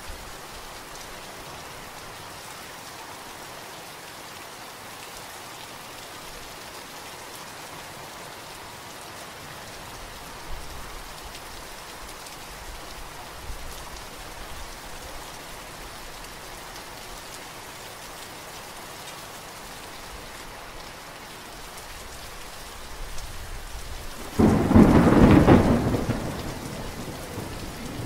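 Steady rain falling, with a faint low rumble of distant thunder around the middle. Near the end a loud clap of thunder breaks in and rolls away over a few seconds.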